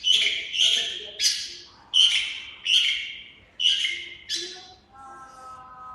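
A small caged bird calling in a rapid series of harsh, raspy chirps, about seven of them roughly two-thirds of a second apart. They break off about five seconds in, leaving a faint steady tone.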